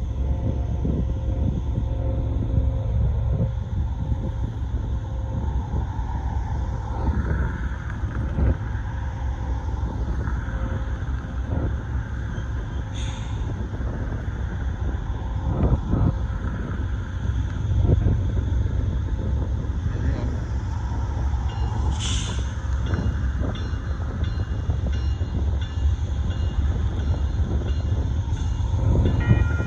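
Union Pacific gravel train's freight cars rolling past: a steady low rumble with frequent clanks and knocks from wheels and couplers. Two brief high-pitched bursts come about halfway through and again about two-thirds of the way through.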